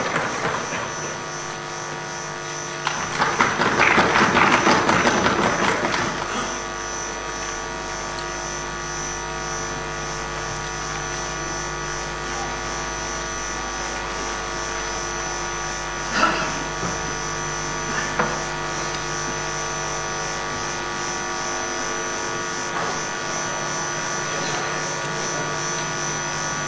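A steady electrical buzz made of many fixed tones, like a hum in the sound system. About three seconds in, a louder burst of noise lasts about three seconds, and two short sharp clicks come later on.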